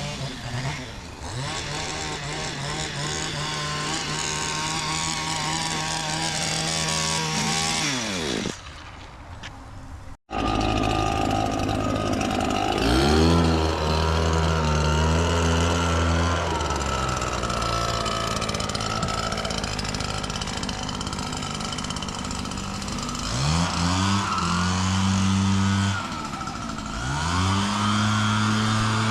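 Lawn mower's small gasoline engine running steadily, then winding down in pitch as it is shut off about eight seconds in. After a cut, an engine runs again, rising in pitch several times as it revs or accelerates.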